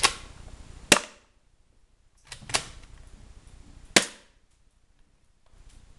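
Spring-powered airsoft Walther P99 replica pistol being cocked and fired twice, one shot at a time. Each cycle is a sharp click as the slide is pulled back, then a louder snap from the shot about a second later.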